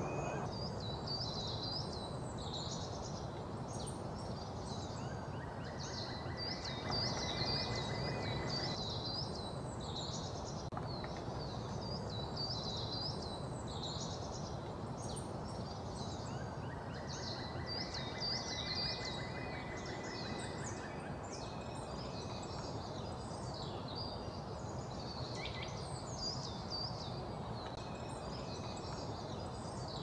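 Forest birdsong: many small birds chirping in quick, high notes throughout over a steady background hiss. A longer, lower trill comes in about six seconds in and again about seventeen seconds in, each lasting around three seconds.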